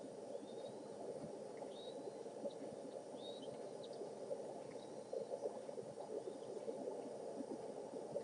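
Steady crackling rustle, with a few short, high bird chirps scattered through it.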